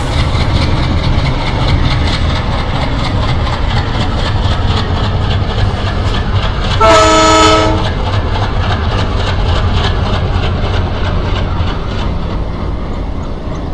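Fairground toy train ride running, a steady low rumble with regular clicking of its wheels, and a horn sounding once for about a second midway.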